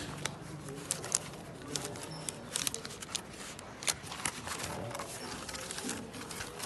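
Irregular clicks and crinkles of a parcel being handled and opened, with no steady rhythm.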